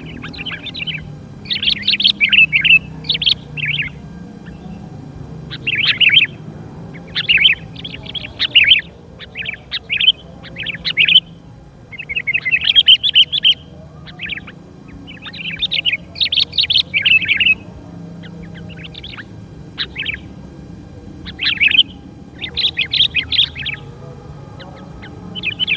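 Sooty-headed bulbuls calling: short bursts of chirping chatter, repeated over and over with brief pauses between them.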